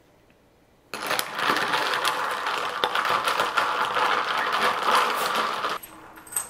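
Ice cubes clinking and rattling against a glass mason jar as iced coffee is stirred quickly with a straw. It is a rapid, continuous clatter that starts about a second in and stops abruptly about five seconds later.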